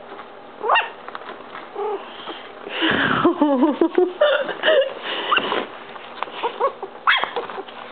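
Yorkshire terrier puppies yipping and whining in play: a string of short, high, squeaky cries that bend in pitch, busiest and loudest from about three to five and a half seconds in.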